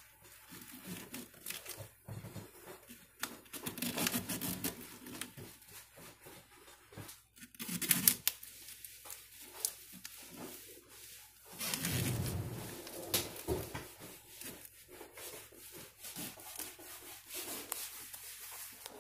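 Vinyl contact paper being handled, with irregular crinkling, rustling and rubbing and a few light taps, louder about eight and twelve seconds in.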